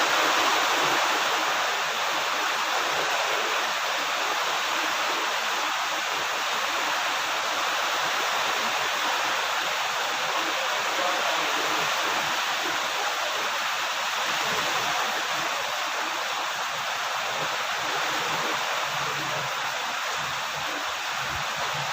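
Heavy rain falling, a steady dense rushing hiss with no distinct drops or gaps.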